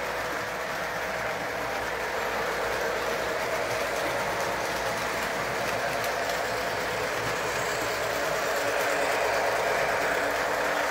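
Electric model train running on its track: a steady rumble of wheels and motor that grows slightly louder toward the end.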